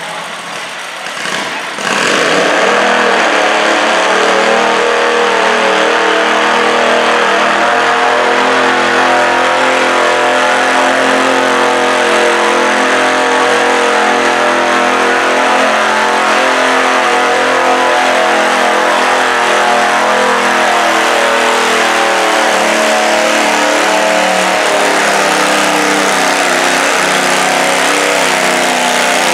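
Garden tractor's small engine revving up about two seconds in, then running hard and steady under load as it drags a weighted stoneboat sled in a pull. Its pitch eases down a little in the later part.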